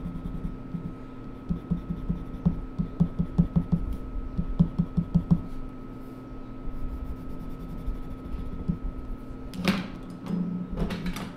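Quick hatching strokes scratching on sketchbook paper in runs of about four or five a second, stopping about halfway. Near the end come a couple of louder knocks and clatters as a drawing tool is put down and picked up.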